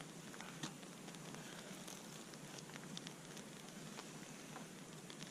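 Faint, irregular crackling over a steady hiss from the cooking fire.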